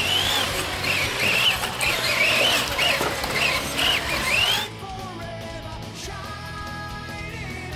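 Rock music soundtrack: loud and dense with a high, wavering lead line, dropping suddenly to a quieter, steadier passage about four and a half seconds in.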